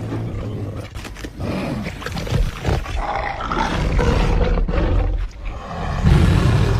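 Disney Carnotaurus dinosaur sound effect: a run of deep, rough creature roars and growls, swelling several times, with the loudest roar near the end.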